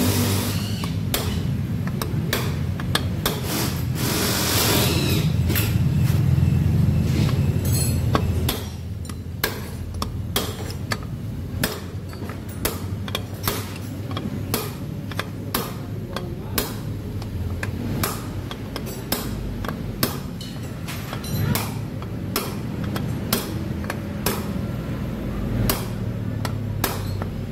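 Hammer blows on a steel drift rod, metal on metal, tapping the ball bearings in the aluminium rear gear case of a Yamaha scooter. Many sharp strikes come at an irregular pace, with a steady low hum underneath.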